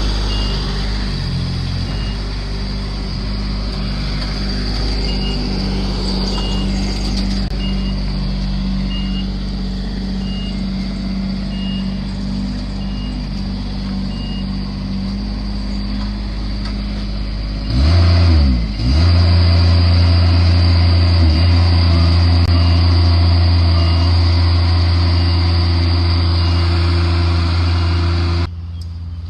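A vehicle engine running steadily with a short high beep repeating about every second and a quarter. About two-thirds of the way in, the engine note sweeps and settles much louder. Near the end it drops off suddenly.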